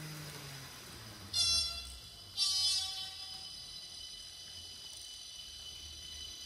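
TGV Sud-Est horn sound played through the N gauge model's ESU LokSound 5 sound decoder: two high-pitched blasts about a second apart, the second longer. Underneath runs the decoder's low running sound as the model moves slowly.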